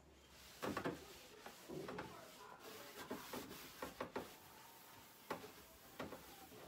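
Scattered light knocks and clicks, with some rubbing, as plastic parts and items are handled inside an open refrigerator.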